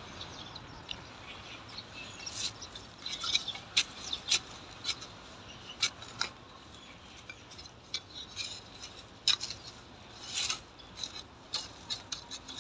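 Metal hand trowel digging and scraping in gritty garden soil: irregular short scrapes and crunches as a plant is set into the hole.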